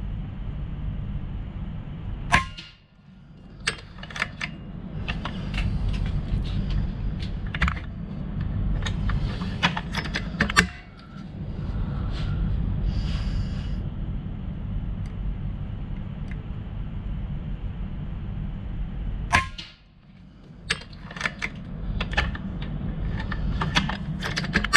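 Regulated PCP air rifle fired a few times, several seconds apart, each shot a sharp crack, with lighter clicks of the action being cycled and pellets loaded between shots. The gun is on a 170 bar fill, which the shooter expects to be falling off the regulator during this group.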